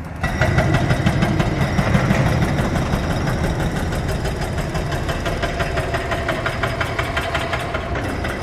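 Hydraulic breaker on a demolition excavator hammering concrete floor slab: rapid, even blows over the running machine's engine, starting abruptly just after the start.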